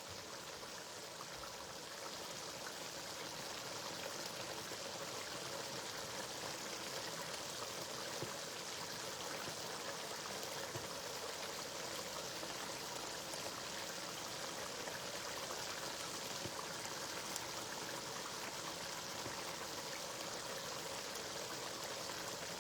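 Steady, even hiss with a fine crackle from a pot of spinach stew sizzling and simmering on the heat, a little louder after about two seconds.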